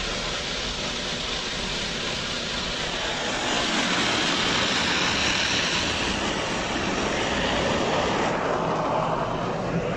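Automatic car wash working over the car, heard from inside the cabin: a steady rushing of water and brushes on the bodywork and windscreen. It grows louder about three and a half seconds in and turns lower and duller near the end.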